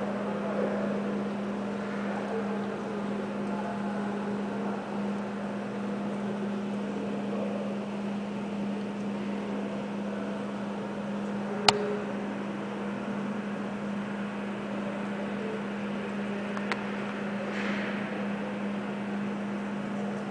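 A steady low mechanical hum over a noisy background, with one sharp click about twelve seconds in and a fainter click near seventeen seconds.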